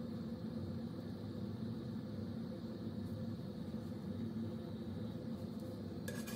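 Steady low mechanical hum with a faint hiss, and a short sharp clatter right at the end.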